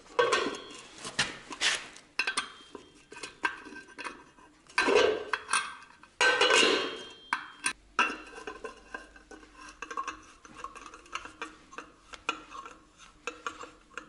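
Chrome hubcap clinking and scraping against a steel car wheel as it is fitted and fastened by hand: irregular metal clicks with short ringing, and louder scraping rattles about half a second in and again around five and six and a half seconds.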